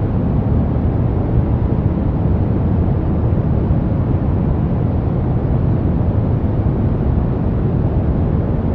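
Soft brown noise: a steady, even rumbling hiss, weighted toward the low end with little treble, unchanging throughout.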